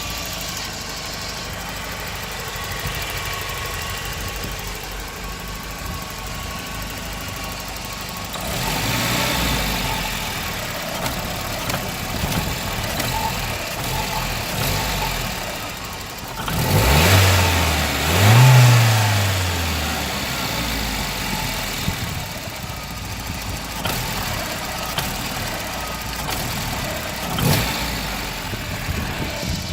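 Volvo 940's B230FK 2.3-litre turbocharged four-cylinder engine idling roughly. Just past halfway it is revved twice in quick succession, the pitch rising and falling each time, then it settles back to idle.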